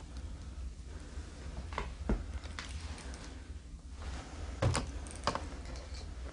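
A few scattered sharp knocks and clicks over a low steady rumble. The loudest knock comes just under five seconds in.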